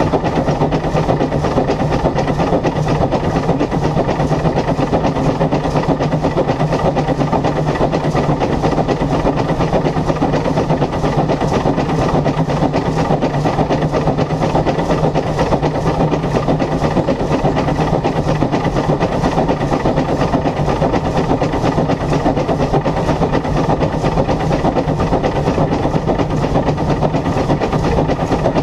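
1904 SECR H class steam tank locomotive No. 263 running steadily along the line: a continuous, even din of engine and rail noise with a regular beat of about two strokes a second, without letting up.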